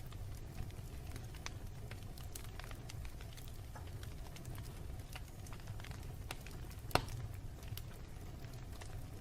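Wood fire burning in a fireplace, with a steady low rumble and scattered crackles and pops, one sharper pop about seven seconds in.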